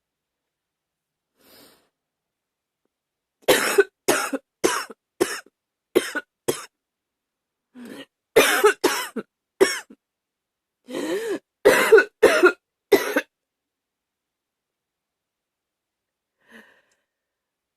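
A woman coughing hard in three fits of four to six coughs each, with short quiet pauses between the fits.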